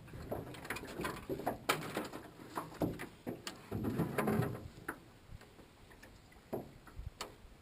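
Scattered clicks and light knocks of fishing tackle and the boat as a freshly hooked bass is reeled in and handled, busiest in the first five seconds and then thinning out.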